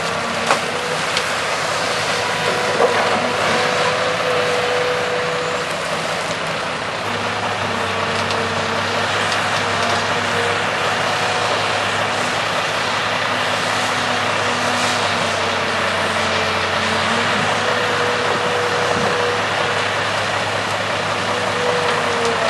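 Diesel engines of a tracked hydraulic excavator and an articulated dump truck running steadily, with hums that shift in pitch and come and go as the excavator's hydraulics lift and swing rock. A couple of sharp knocks of rock in the first few seconds.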